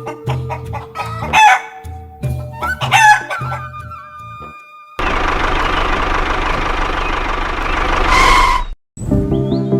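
Rooster crowing twice over background music with plucked notes. It is followed by a loud, steady rushing noise lasting nearly four seconds that ends in a short rising whine and cuts off abruptly.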